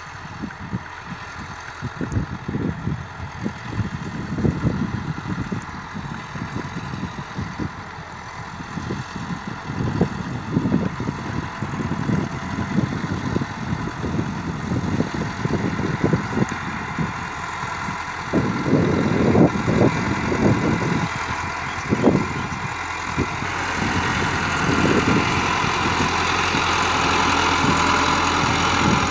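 Massey Ferguson 385 tractor's four-cylinder diesel engine labouring under load in third low gear, pulling an 11-tine cultivator through hard ground. It grows louder over the last several seconds as the tractor comes close, with gusty low rumbling throughout.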